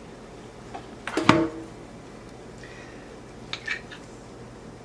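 A utensil clinks sharply against a dish about a second in, with a brief ringing tone, then a few lighter taps near the end.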